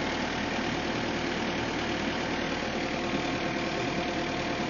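Engine of the machine hoisting a log on a chain, running steadily with no change in speed.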